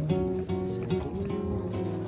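Music: a melody of held pitched notes changing every few tenths of a second.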